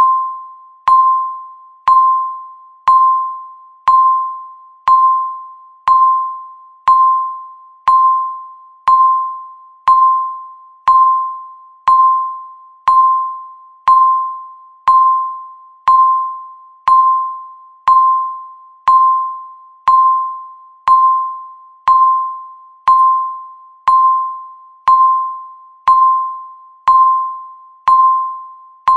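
Electronic countdown-timer beep, one short tone near 1 kHz sounding once every second, each struck sharply and fading away.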